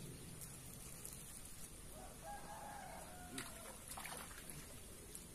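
A rooster crowing once, faintly, for about a second, starting about two seconds in, over low outdoor background noise with a few light clicks.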